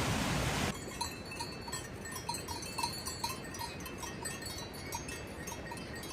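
Steady rain noise that cuts off abruptly just under a second in. It gives way to cowbells on grazing livestock, clanking irregularly several times a second.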